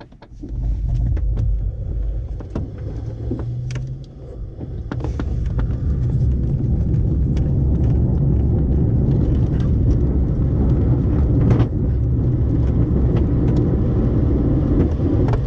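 Nimbus 3DT glider on its takeoff roll behind a tow plane, heard from inside the cockpit: a steady low rumble of the wheel rolling down the runway with scattered knocks from bumps, growing louder about four seconds in as it gathers speed.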